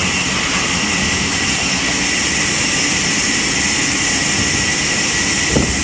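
Sawmill machinery running steadily, a loud even hiss with a high whine. There is a short knock near the end.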